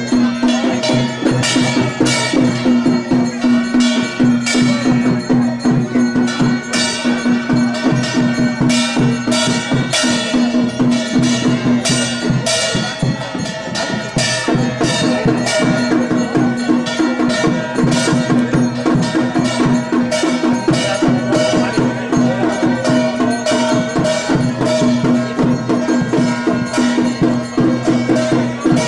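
Drum and percussion music, struck in a fast, even rhythm over a steady held drone tone.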